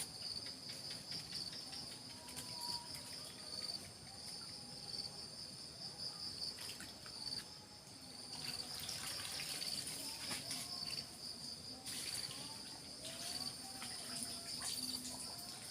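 Steady insect chorus: a continuous, finely pulsing high buzz, with short bursts of noise now and then.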